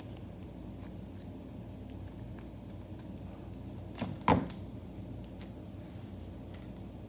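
Plastic slime tubs handled and stacked on a plastic-covered table: a few soft clicks, and one sharp knock a little after four seconds in as a tub is set down on the stack. A steady low hum runs underneath.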